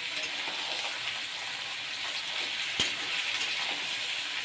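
Chicken frying in a pan with a steady sizzle, and a single sharp click a little past halfway through.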